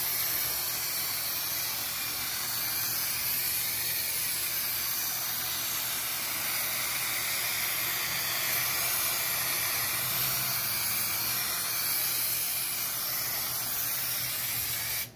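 Aerosol can of 3M corner bead adhesive spraying in one long, steady hiss, coating the inside of a plastic drywall corner bead. The spray stops suddenly near the end.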